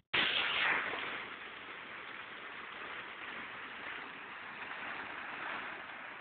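Steady rushing of flowing river water, a little louder in the first second.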